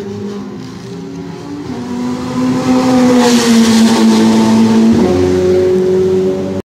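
Ferrari Challenge race car passing at speed on the straight: its engine note swells, peaks with a rush of noise as it goes by, and drops in pitch about five seconds in as it pulls away. Other race cars' engines run in the distance.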